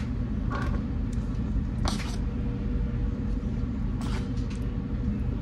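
A measuring spoon scooping sugar from a plastic bin and tipping it into a metal bread-machine pan: a few short scrapes, with a brief rustle of pouring sugar about two seconds in. A steady low rumble runs underneath.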